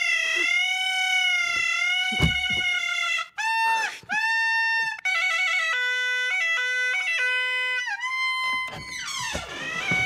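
Suona, the Chinese double-reed horn, blown loudly as practice: a long held note that wobbles in pitch, then short separate notes and a choppy run stepping up and down. Another held note follows, ending in a quick downward slide near the end.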